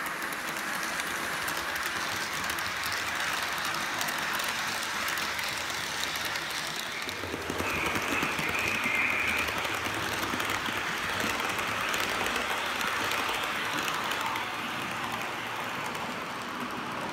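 Model E636 electric locomotive and its train of mixed freight wagons running on a model railway, the small wheels clicking and rattling steadily over the track. A short high whine sounds about eight seconds in.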